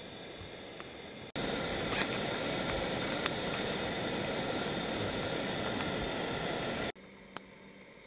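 Pot of stew boiling hard on a portable gas stove: a steady, dense bubbling and hissing. It starts abruptly about a second in and stops abruptly near the end, with a sharp pop about three seconds in.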